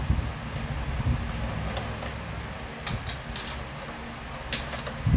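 Small sharp clicks and taps of a metal antenna connector being unscrewed and pulled from a 5G home router's threaded port, with a few low handling bumps, over a steady background hum.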